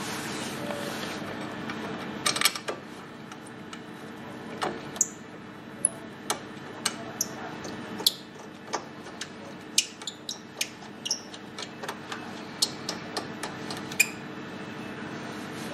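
Irregular sharp metallic clicks and clinks as a car's front brake caliper and carrier are fitted over the disc and their bolts handled, some close together, over a steady low hum.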